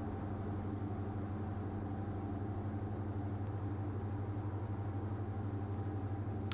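Diamond DA42 twin's two engines and propellers droning steadily in the cockpit at approach power, with a slight regular pulsing.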